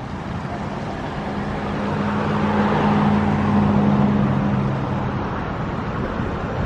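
A motor vehicle driving past, its engine and tyre noise rising to a peak about halfway through and then fading away.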